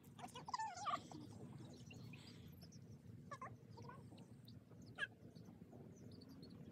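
A flock of young chickens giving soft, wavering calls: a cluster of short calls about half a second to a second in, another around three and a half seconds, and a brief one near five seconds.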